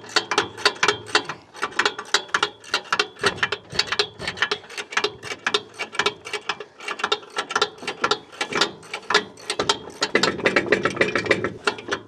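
Ratchet wrench clicking in a fast, steady run as it cranks in a small excavator's track tensioner to slacken a thrown track. The clicking grows a little louder and denser near the end.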